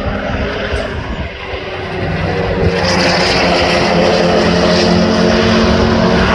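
Track-day cars' engines running at high, steady revs on the circuit, a continuous drone that grows louder about two to three seconds in.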